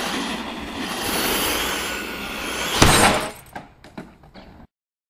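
Intro sound effect: a steady rushing noise that ends in a loud crash of breaking glass about three seconds in, followed by a few scattered clinks of falling pieces.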